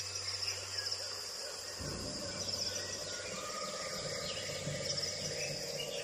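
Rainforest ambience: a steady high chirring of insects, with a few faint bird calls.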